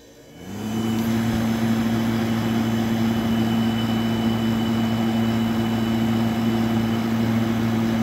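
Zeks industrial refrigerated air dryer's compressor starting: its hum rises in pitch within about half a second, then settles into a steady running hum with an even noise underneath. It starts cleanly on its newly fitted replacement start capacitor, the sign that the capacitor repair has worked.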